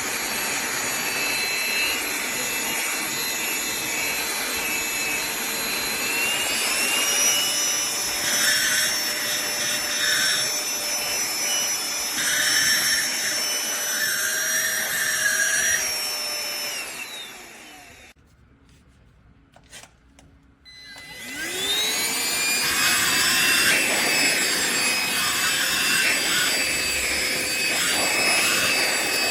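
Aspiron cordless handheld vacuum cleaner running with a high motor whine whose pitch steps up about a quarter of the way in. It then winds down and stops, and after a few quiet seconds with a click or two it spins back up to a steady whine.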